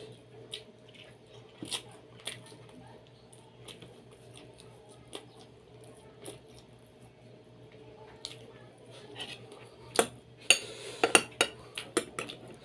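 Dishes and utensils clinking during a meal: sparse light clicks at first, then a quick run of louder clinks about ten seconds in.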